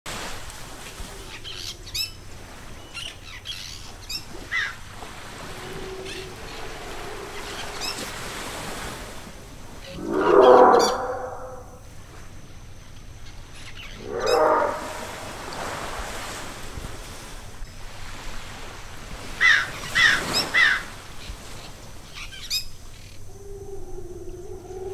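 Jungle birdsong ambience: birds chirping and calling over a steady background hiss, with two louder, lower calls about ten and fourteen seconds in, and a quick run of three chirps near the end.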